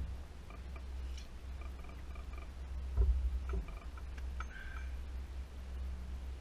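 Low, steady rumble of a boat's motor running slowly in gear while the boat maneuvers, with one knock about three seconds in.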